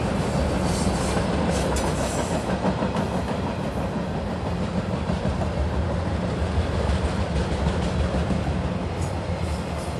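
Freight train flatcars rolling past at close range: a steady rumble of steel wheels on rail, with scattered wheel clicks.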